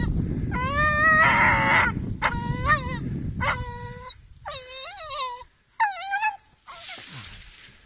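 Airedale terrier puppy whining and yelping in a string of about six high-pitched calls while biting at a dead buck. A low rumble of noise lies under the first half.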